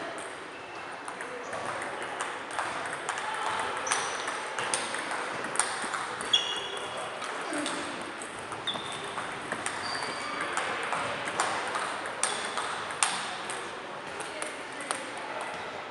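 Table tennis balls clicking off bats and tables in quick, irregular rallies from several tables at once, over indistinct background chatter.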